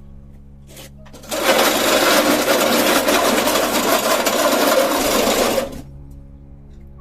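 A chainsaw buzzing loudly for about four and a half seconds, starting and cutting off abruptly, over quiet background music.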